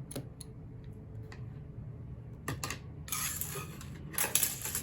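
Scissors snipping off crochet thread ends: a few light clicks, then two louder snips near the end.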